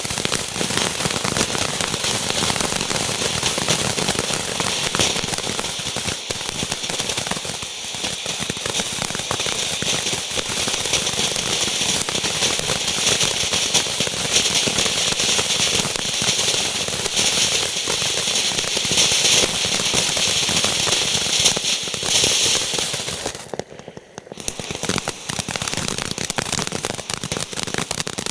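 Ground fountain firework spraying sparks, a dense, continuous crackle and hiss. The crackling drops out briefly about 24 seconds in, then picks up again.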